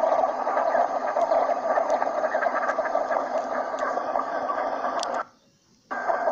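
Flock of northern shoveler ducks calling, a dense, continuous chatter of short calls. It cuts out briefly about five seconds in, then resumes.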